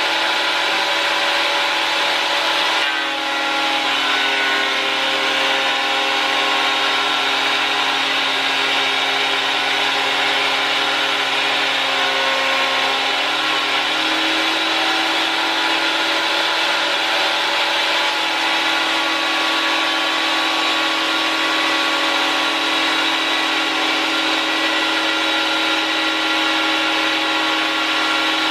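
Güde GADH 200 combined jointer/thickness planer running, its 1250 W motor driving a two-knife cutterhead at a steady, loud whine. About three seconds in the pitch drops as the cutterhead bites into a board being fed through the thicknesser. It stays low under the load of the cut, and rises back to free-running speed as the board clears, about 13 seconds in.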